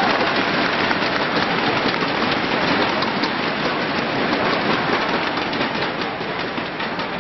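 Arena crowd applauding after a point ends, a dense patter of many hands clapping that slowly dies down.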